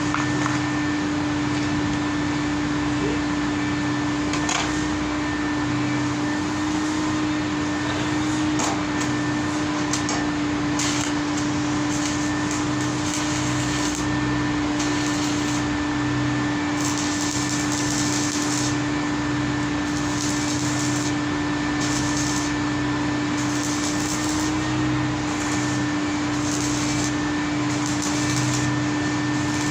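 A motor-driven machine running steadily, with a constant hum and a rush of air. The upper hiss flickers irregularly, brighter in the second half.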